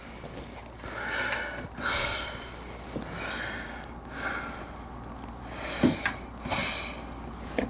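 A man breathing hard through his nose and mouth in repeated heavy breaths, straining at physical work, with a single sharp knock about six seconds in.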